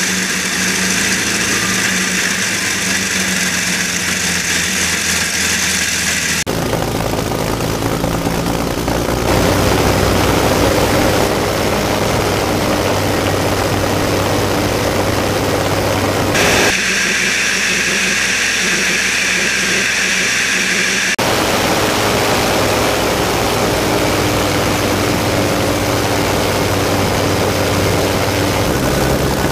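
Daimler-Benz DB 605 inverted V12 aero engine running steadily on a test stand. The tone changes abruptly several times, about six, nine, sixteen and twenty-one seconds in, where different runs are cut together.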